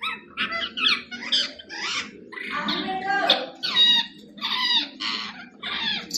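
Pet parrot chattering in a quick run of short, high-pitched squawky calls and talking sounds, about two or three a second.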